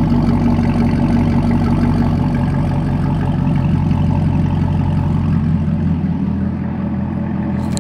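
Supercharged 6.2-litre LT4 V8 of a 2017 Chevrolet Camaro ZL1 idling through an MBRP aftermarket exhaust, heard at the tailpipes: a steady, mean-sounding idle that settles a little lower about two and a half seconds in.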